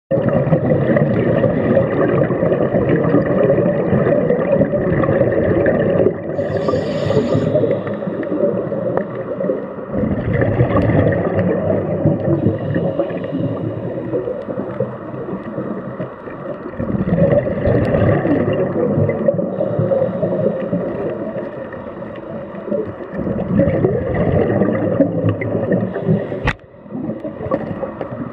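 Scuba diver's breathing heard underwater: exhaled bubbles from the regulator gurgling and rumbling in long stretches several seconds apart, with a short hiss about seven seconds in. A single sharp click near the end.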